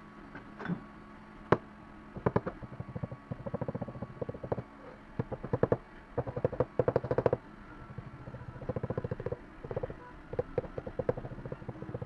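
Small metal-headed hammer rapping a 3D-printed PLA pattern set in petrobond sand in a wooden flask, to loosen it from the mould. The taps come in quick runs of many light taps a second, with short pauses between runs.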